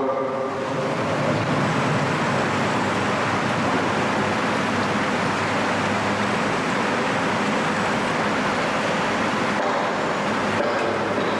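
Steady rushing room noise of a large prayer hall, with electric wall fans running and a faint low hum, while the congregation holds a silent prostration.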